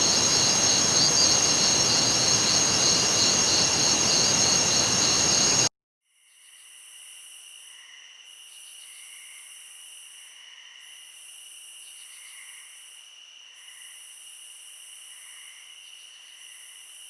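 Night crickets chirping: first a loud, dense chorus of steady high trills over hiss, which cuts off abruptly about six seconds in. After a brief silence a much quieter cricket chorus begins, with steady high trills and a still higher buzz that pulses on and off every second or so.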